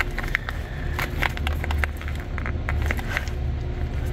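Scattered light clicks and crackles of a wiring harness and its plastic loom being handled and moved, over a steady low background rumble.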